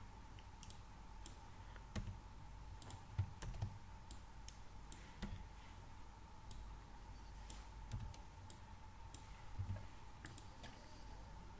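Irregular clicks of computer keyboard keys as code is typed and edited, a few keystrokes at a time with short pauses between them.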